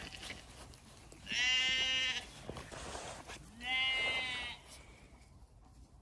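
A sheep bleating twice, each call about a second long and a couple of seconds apart.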